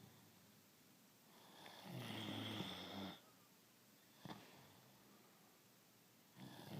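A sleeping pet snoring: one rasping snore lasting about a second and a half a couple of seconds in, a short click midway, and the next snore starting near the end.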